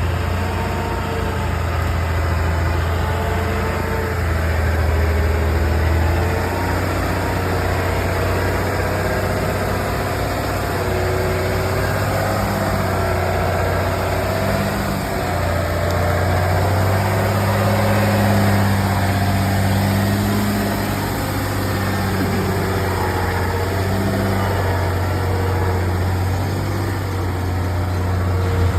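A vehicle engine running steadily at low revs, with a constant low hum and slowly wavering higher tones.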